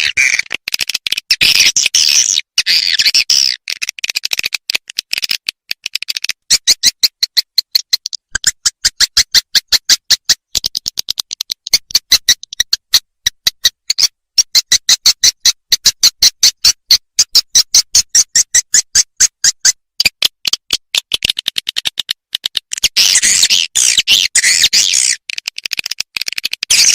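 Edible-nest swiftlet calls played as a swiftlet-house lure recording: a high, fast chattering twitter at the start and again near the end, with a long run of evenly spaced sharp clicks, about four a second, in between.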